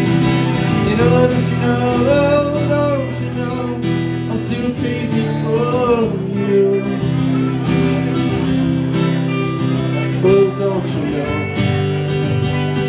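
Live acoustic and electric guitars playing a song together, the acoustic strummed, with a sung melody over them that comes and goes.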